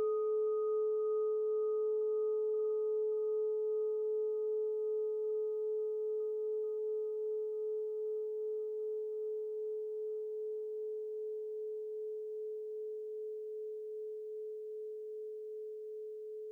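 Singing bowl ringing out: one steady tone with a slow, regular waver, its higher overtones dying away first while the main tone fades slowly.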